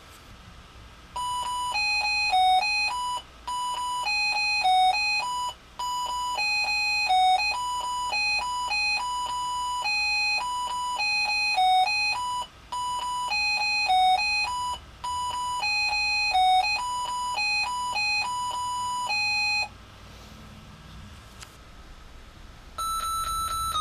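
An Arduino Mega playing an RTTTL ringtone as simple electronic beep tones: a short, bouncy melodic phrase repeated several times, stopping about 20 seconds in. After a short pause a new, higher tune begins near the end.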